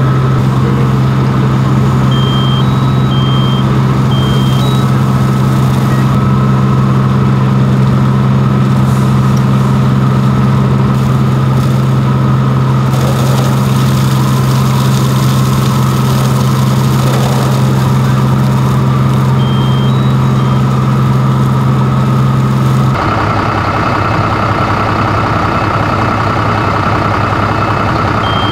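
Fire engine's diesel engine running steadily at constant revs while its pump feeds a hose line, with a few short high electronic beeps. Near the end the drone shifts lower and a higher hum comes in.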